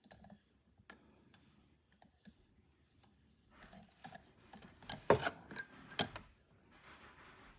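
Buck 119 hunting knife blade being stroked on a strop charged with diamond compound: soft, irregular rubbing strokes that grow denser partway through, with two sharp knocks about five and six seconds in.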